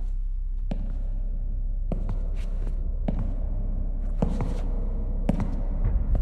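Slow, evenly spaced footsteps of hard leather dress shoes on a tiled floor, about one step a second, over a steady low hum.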